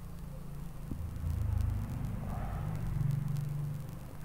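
A low rumble that swells about a second in and eases off near the end, with a few faint clicks.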